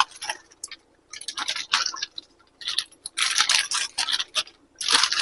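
Wet squishing and scraping of cooked chicken going into a frying pan of thick creamy soup mixture, in irregular bursts of short, soft sounds.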